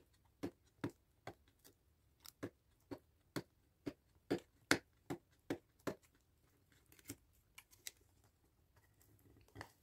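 Fingers picking and pressing at a small sealed earbuds box, making an irregular string of sharp clicks and taps about two a second that thin out in the last few seconds.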